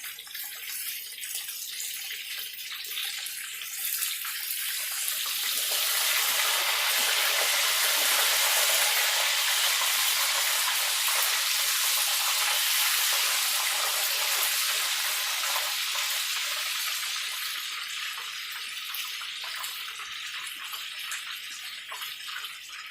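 Breaded chicken thighs frying in hot oil in a pan, a steady sizzle that swells louder about five seconds in, then eases off toward the end.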